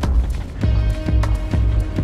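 Background music with a steady beat of about two strokes a second over a heavy bass pulse.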